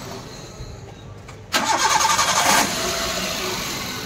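Maruti Suzuki Wagon R's 16-valve petrol engine cranked by the starter and catching quickly about a second and a half in, running fast for about a second, then settling to a steady idle. It is a prompt start now that a loose connection, which had cut voltage to the ignition and left the engine cranking without firing, has been repaired.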